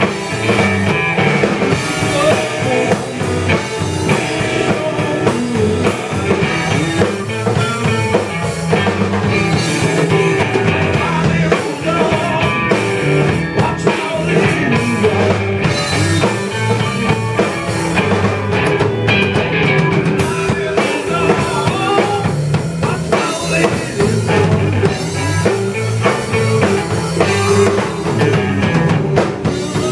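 Live blues band jamming: two electric guitars playing over a drum kit, a dense, steady groove.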